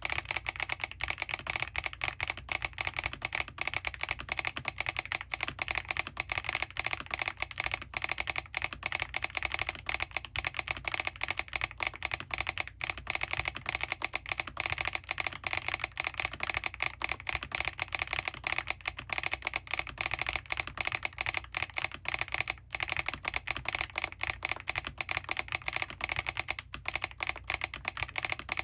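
Fast, continuous typing on a Smurve80 mechanical keyboard. It has lubed Keygeek Oat linear switches, an aluminium plate, full foam and stock doubleshot PBT keycaps, and its solenoid is switched on. The keystrokes come as a dense, even stream of clicks.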